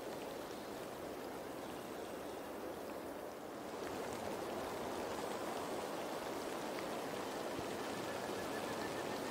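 Faint, steady rush of a shallow stream running over rocks, a little louder from about four seconds in.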